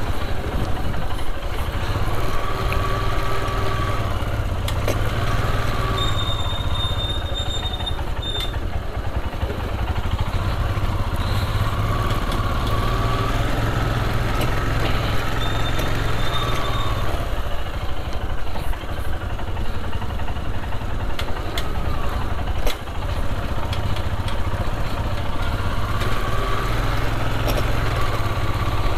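Royal Enfield Himalayan's single-cylinder engine running steadily at low road speed, the throttle easing and picking up a little, with street traffic around it. A short high-pitched tone sounds twice, about 7 and 16 seconds in.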